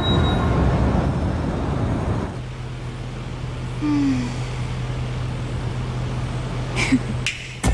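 A rumbling noise that settles after about two seconds into a steady low hum, with a faint short squeak partway through and a couple of sharp clicks near the end.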